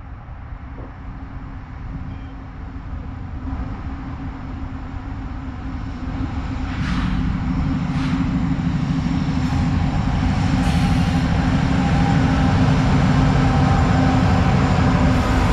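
Diesel-electric freight locomotives approaching and passing, a CSX unit leading and a CN unit second. Their engines' drone grows steadily louder from about six seconds in, with a few brief hissing sounds as the units draw near.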